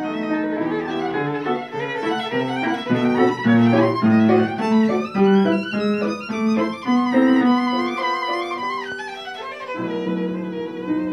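Violin playing quick runs of notes with piano accompaniment, a few held notes with vibrato near the end.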